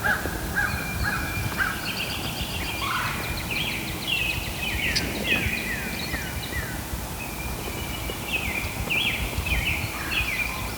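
Wild turkey calling, with a tom gobbling, among repeated short downward-slurred bird notes.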